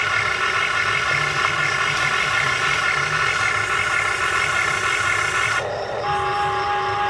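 Small electric gear motors of a Huina 1580 RC excavator whining as it works, with the pitch pattern changing abruptly near the end when a different motor starts.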